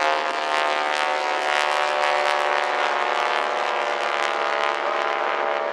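Boeing Stearman biplane's radial engine and propeller droning steadily as the aircraft flies over in an aerobatic display.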